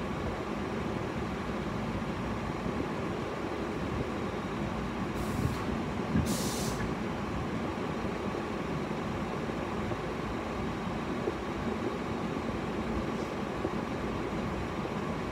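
Steady low hum and hiss of a car cabin with the vehicle running. Two short hisses come about five and six seconds in, the second one longer.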